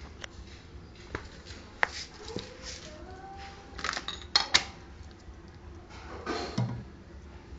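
Irregular metallic clinks, knocks and short scrapes of tools and metal parts being handled while a washing machine's gearbox mechanism is taken apart, with a few brief ringing tones.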